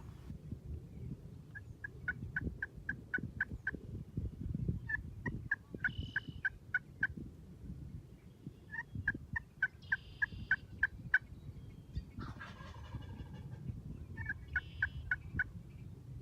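Wild turkeys gobbling several times, with runs of eight to ten evenly spaced yelps at about four notes a second between and under the gobbles.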